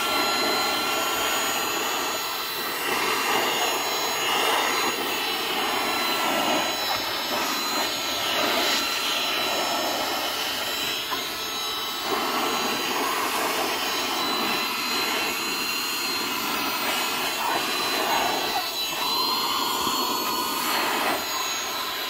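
eufy HomeVac H11 cordless handheld vacuum cleaner running, a rushing suction noise with a steady high-pitched motor whine. The rush shifts now and then as the nozzle is worked over crumbs on a leather car seat.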